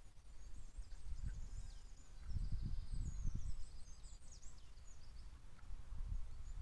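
Small pet animals squeaking: a series of faint, high-pitched, short squeaks that slide up and down in pitch during the first few seconds. Low rumbling noises run beneath them, heaviest in the middle.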